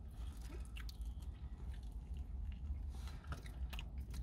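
A person biting into a soft, sugar-coated jam doughnut and chewing it, a run of small irregular wet clicks.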